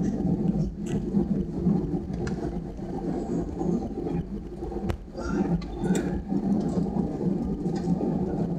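Airbus A320 cabin noise while taxiing: a steady low hum and rumble from the engines at low thrust and the rolling airframe, with one sharp click about five seconds in.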